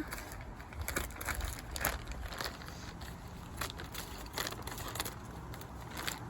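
Packaging of new ignition cables being cut open and handled: irregular crinkles, rustles and small clicks over a low steady hum.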